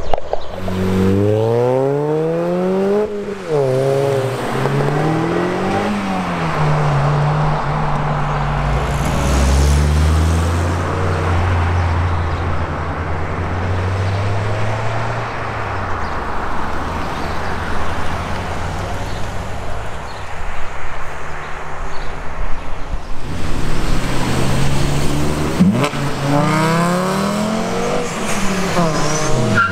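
Supercar engines accelerating hard through the gears, the engine note climbing and dropping at each quick upshift in the first six seconds. A lower, steadier engine note follows, and another car pulls away with rising notes and fast gear changes near the end.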